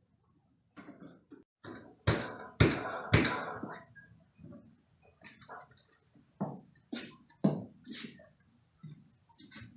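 A run of irregular knocks and clunks from hands and tools working on the old water heater and its fittings. The loudest three come close together about two to three seconds in, with a further string of lighter knocks about half a second apart later on.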